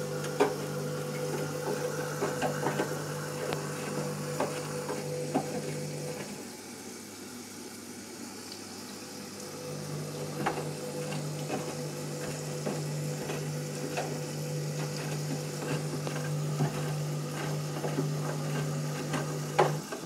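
Candy front-loading washing machine in its pre-wash, tumbling a half load of tea towels through water: a steady motor hum with splashing and sloshing. The drum stops for about three seconds around six seconds in, then starts turning again.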